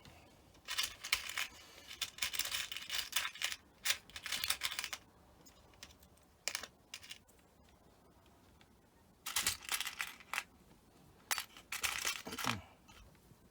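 Scratchy rustling and clicking from hands and small tools working on the cut ends of a cable while connectors are fitted, in two spells of a few seconds each.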